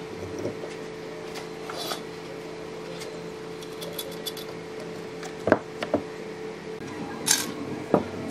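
Steel bar clamps clinking and knocking against each other and the wooden frame as they are set and tightened for a glue-up, with a few sharp knocks in the second half, over a steady background hum.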